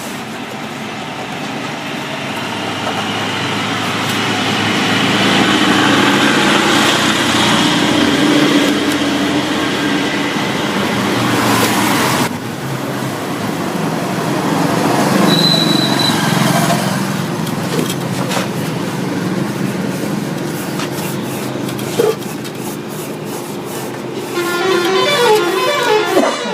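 Motor vehicle noise, swelling and fading twice like traffic going by, with a brief high tone near the middle.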